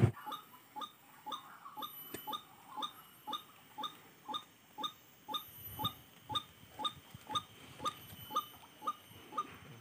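A small animal calling over and over: short, identical notes repeated at an even pace of about two to three a second.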